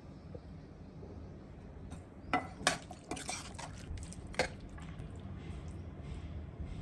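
Glass pot lid clinking as it is lifted off the pan a little past two seconds in, then a steel ladle knocking and scraping as it stirs thick mutton curry in the pan, with a few more sharp knocks along the way.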